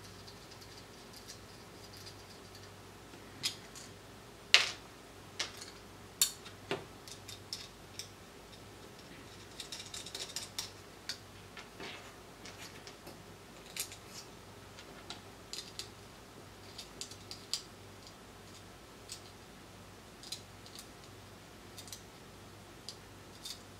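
Small clicks and taps of hand-fitting metal screws and brass standoffs to a small circuit board: irregular ticks and knocks, the loudest about four and a half seconds in and a quick cluster around ten seconds, over a faint steady hum.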